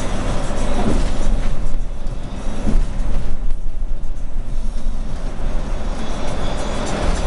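City bus driving along at speed, heard from inside: a steady deep engine and road rumble with rattling noise above it.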